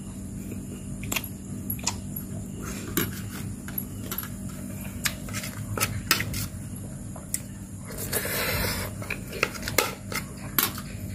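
Metal spoon clinking and scraping against a ceramic plate while eating: scattered sharp clicks, with a longer scrape about eight seconds in.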